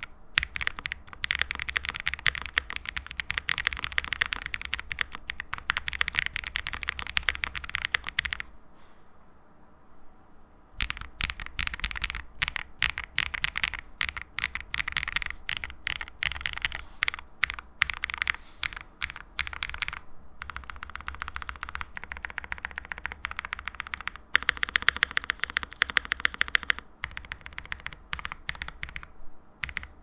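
Typing on a Space65 R3 mechanical keyboard with an FR4 plate, plate and case foam, lubed Divinikey Saru tactile switches and GMK keycaps: a rapid stream of keystroke clacks, with a pause of about two seconds roughly a third of the way through.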